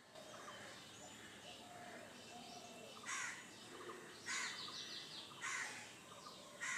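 Backyard birds: one bird gives a loud, harsh call four times about a second apart from about halfway in, over fainter chirping and trilling of smaller birds.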